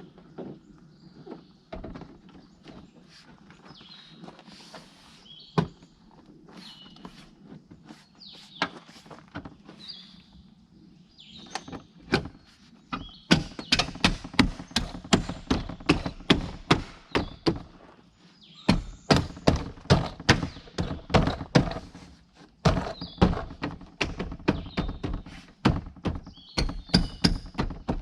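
Hand work on a pickup's rear door: faint scattered clicks and handling at first, then from about halfway through a fast run of loud, sharp knocks and clicks, about four a second, with two short breaks.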